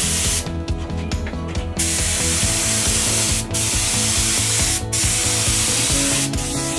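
Air spray gun hissing as a clear varnish coat is sprayed on in passes. The hiss stops from about half a second in until nearly two seconds in, and breaks off briefly twice more, around three and a half and five seconds in.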